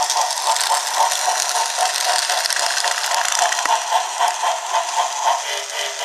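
Battery-powered Thomas TrackMaster Victor toy engine running on plastic track: a steady motor-and-gear whir with a fast, even clattering pulse.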